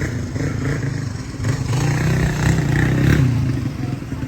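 A motor vehicle engine running close by, with a low hum that grows louder about a second and a half in and eases off near the end, as if passing.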